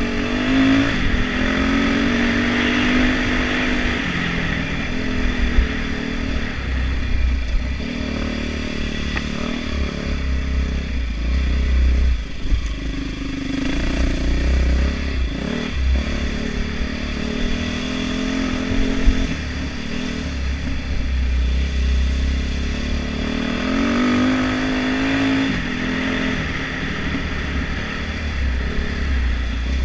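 Dirt bike engine running as the bike is ridden up a rough trail, its revs rising and falling with the throttle, climbing noticeably near the start and again near the end, with a few brief knocks from the bike over the rocky ground.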